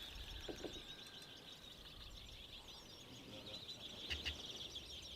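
Many small birds chirping at once, a steady twittering chorus, with a couple of faint knocks, one about half a second in and one about four seconds in.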